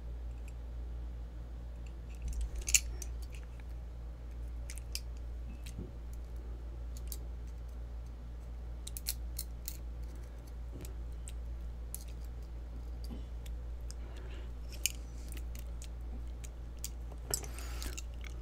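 Lock picks working a small challenge lock cylinder: scattered light metallic clicks and scratches, with a denser rasping scrape near the end as the picked cylinder is handled. A steady low electrical hum runs underneath.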